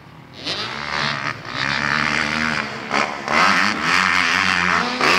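Motocross dirt bike engines revving up and down as the bikes ride the track's jumps. The engines are quieter at first and grow loud about half a second in, with repeated surges and brief drops in throttle.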